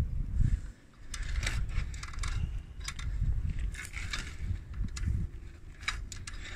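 Metal ladder knocking and clinking as a brown bear paws and jostles it at its foot: scattered sharp knocks over a low rumble.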